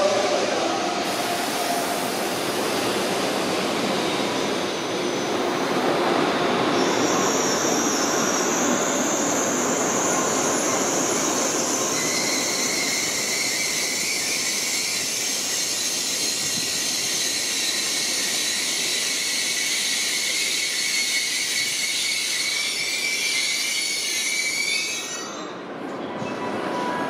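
N700S Shinkansen train moving slowly along the platform with a steady rumble of wheels on rail. About a quarter of the way in a high, steady squeal joins, and a lower whine-like tone follows partway through. Both tones fade out near the end.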